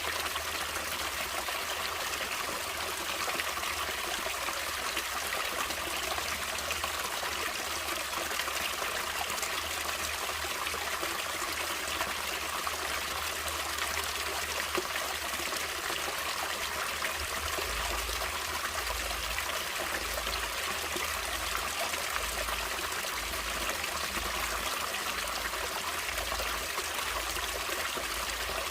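Stream water flowing steadily, an even trickling rush with no break.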